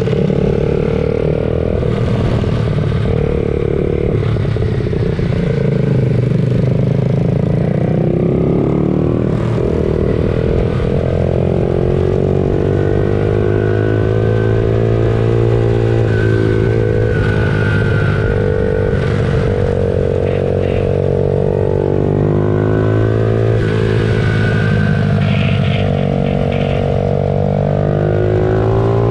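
Several pit bike engines racing together, each revving up and falling away in turn, their pitches rising and dropping out of step with one another.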